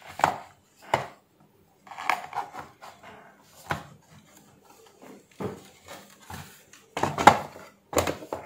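Hard plastic parts of a wall-mounted electric fan heater knocking and clattering as the heating-element grille is handled in the housing and the front cover is put back on. There is a string of separate sharp knocks with a brief scrape about two seconds in, and the two loudest knocks come near the end.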